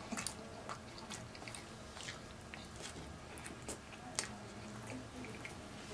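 A person chewing a mouthful of sandwich, with faint, irregular mouth clicks; one click about four seconds in is a little louder.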